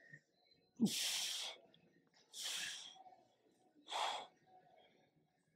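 A man exhaling hard three times, about a second and a half apart, with the effort of kettlebell Cossack squats. The first breath opens with a brief low grunt.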